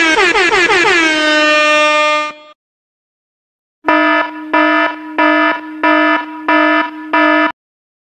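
Air horn sound effect: one loud blast of a bit over two seconds, its pitch dropping at the start and then holding. After a pause of about a second and a half comes an emergency alarm sound effect: six short buzzing beeps, about one and a half a second.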